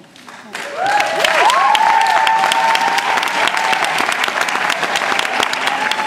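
Audience applauding, starting about half a second in, with rising and falling whoops over the clapping.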